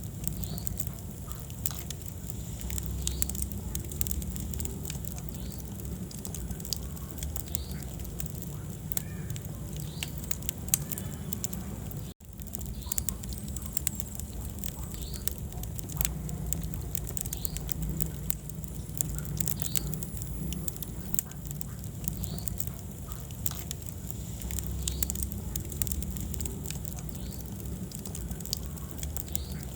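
Wood fire burning in a fireplace: a steady low rumble of flames with many sharp crackles and pops, and a momentary dropout in the sound about twelve seconds in.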